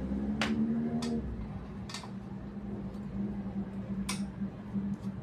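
A steady electrical hum, with a few sharp clicks or taps over it.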